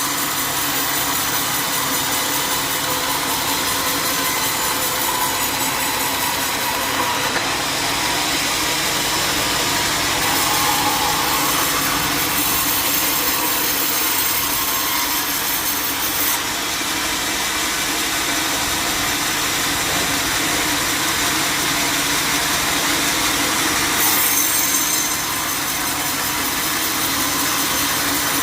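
Band sawmill cutting through a jackfruit log, a continuous loud sawing noise that shifts in character a few times.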